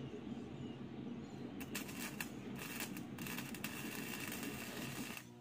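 Gasless flux-core MIG welder (Powerhouse) arc crackling and sputtering during a weld. It starts about a second and a half in and cuts off shortly before the end, over a low steady machine hum.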